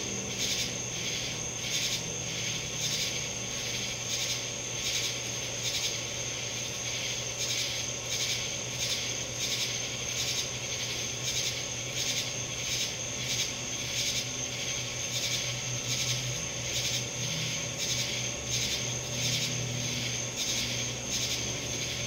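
Insects calling in a steady chorus that pulses about three times a second, with a high steady tone, over a low hum.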